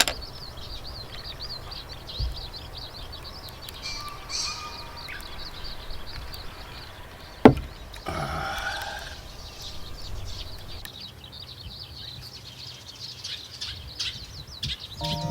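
Small birds chirping steadily in quick high notes, with one sharp knock about halfway through, the loudest sound.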